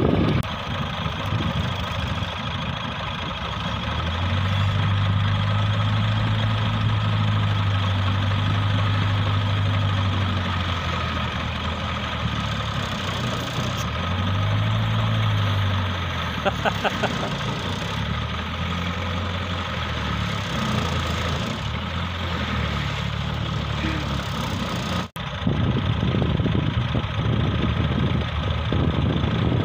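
Engines of a Massey Ferguson 240 tractor and an old Toyota Corolla running under load as the two vehicles, hitched together, pull against each other. The engine note holds steady, then rises and falls around the middle, and cuts out for a moment near the end before running on rougher.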